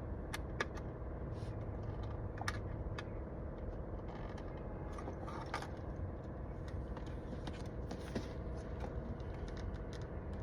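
Scattered small clicks and creaks of plastic steering-wheel trim being pried and worked by hand to free its hidden retaining clips, over a steady low hum.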